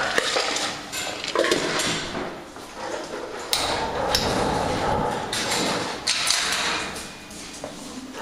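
Irregular knocks, clatter and scuffling.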